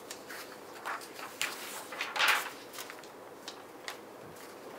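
Brief scrapes and rustles of a hand and marker moving over a sheet of paper, a handful of short strokes with the loudest, longest one about two seconds in.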